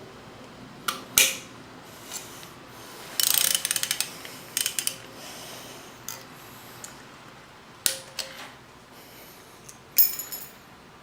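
A wrench clicking and clinking against the metal of a timing belt tensioner as it is worked to release the tensioner: scattered sharp clicks, a quick run of ticks about three seconds in, and a ringing metal clank near the end.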